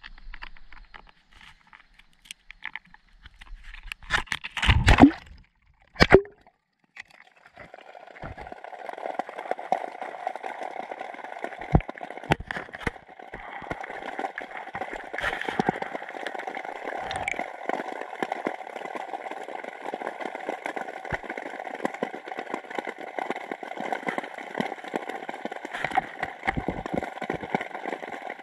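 A GoPro in its waterproof housing splashes into canal water about four to five seconds in. From about seven seconds on there is the steady, muffled hiss of being underwater, with a few sharp clicks.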